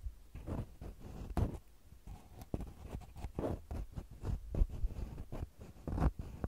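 Wooden ear-cleaning sticks scraping and tapping on the metal mesh grilles of a microphone, very close up. The sound is an irregular run of short scratchy strokes and small clicks, with a few louder scrapes.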